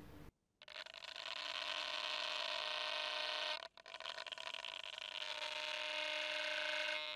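Steady electronic hiss with a faint steady whine, picked up by the onboard camera of a Hubsan X4 Pro drone resting on the ground with its motors not yet started. The sound cuts out briefly just after the start and again about four seconds in.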